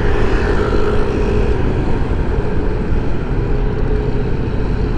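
A road vehicle driving: a steady low rumble of engine and road noise with a steady engine hum.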